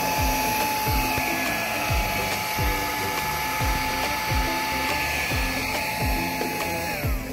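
Handheld battery-powered bug vacuum running with a steady high whine and rushing air as it sucks slugs off a paver; near the end the motor winds down, its whine dropping in pitch, and stops. Background music with a steady beat plays throughout.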